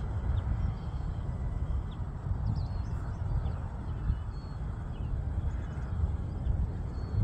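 Wind buffeting the microphone in a constant, uneven low rumble, with faint bird chirps here and there.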